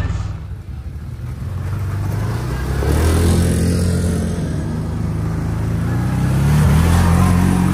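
Quad bike (ATV) engine running, its revs rising about three seconds in and again near the end.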